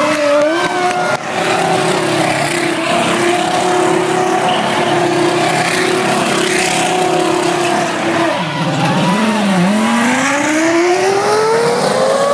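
Formula One car's engine held at steady high revs as the car spins donuts, with tyres squealing over it. Near the end the revs sag briefly, then climb in one long rising sweep as it accelerates away.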